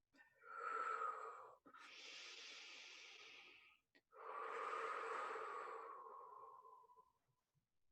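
A person breathing deeply and audibly close to the microphone: three long breaths, the last a drawn-out exhale that trails off, as part of guided breathwork.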